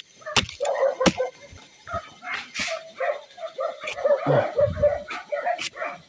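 Many dogs barking over and over, with a few sharp knocks of a machete chopping into the hard sugar palm flower stalk.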